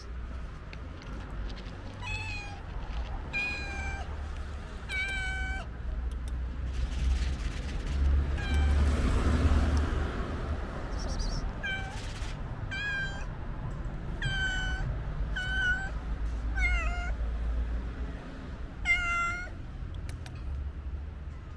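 Calico cat meowing about ten times in short calls, several falling in pitch, as a hungry stray asking for food. A low rumble of noise swells underneath in the middle.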